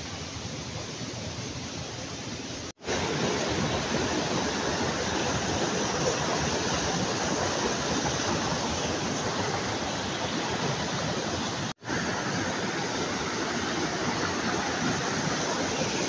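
Mountain stream rushing white over rocks in a steady roar of water. It is quieter for the first three seconds, louder after a split-second dropout, and cuts out for an instant once more near the end.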